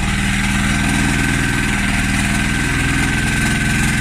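Portable gasoline generator engine running steadily while it powers a dryer, with a thin steady high whine over it.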